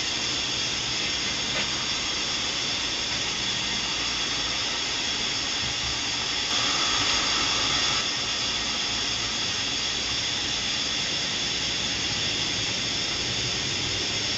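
Steady hiss of boiling canning pots and steaming pickling syrup, while hot vinegar-sugar syrup is poured through a plastic canning funnel into a jar of cucumber spears. It is a little louder for a moment about six and a half seconds in.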